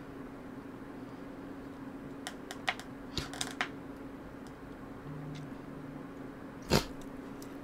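Scattered light clicks and taps, bunched together in the middle, then one louder thump near the end, over a steady low hum.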